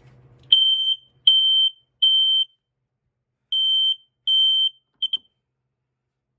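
i4618AC smoke alarm sounding in the temporal-three pattern, set off by canned test smoke: a high-pitched beep three times, a pause, then twice more, breaking off with a short stutter about five seconds in.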